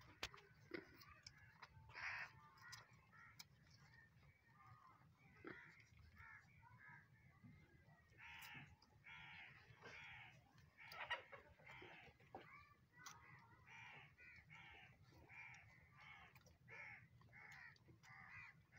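Faint animal calls: a run of short, harsh calls repeated about twice a second, starting about eight seconds in, with scattered fainter calls and clicks before that.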